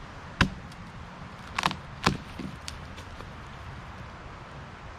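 A blade chopping and splitting into a downed pine log to get out resin-soaked fatwood: a handful of sharp knocks, the loudest about half a second in and about two seconds in, with a quick double knock between them.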